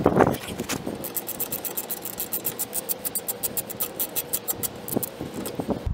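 Hand socket ratchet clicking steadily, about six to seven clicks a second, as it backs out a brake caliper bolt. The clicking stops shortly before the end.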